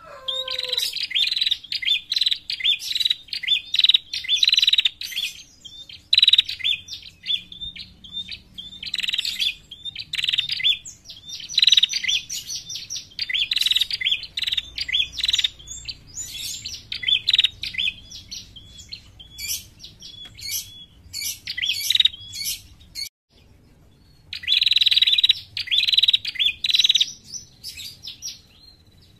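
Female prenjak calling: rapid runs of sharp, high chirps in quick bouts, broken by one short pause about two-thirds of the way through. This is the female's call used as a lure to draw other prenjak.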